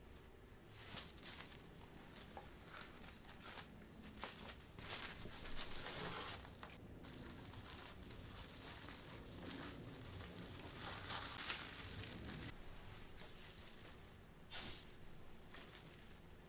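Plastic cling film crinkling and rustling in irregular bursts as hands wrap it tightly around a crepe roll.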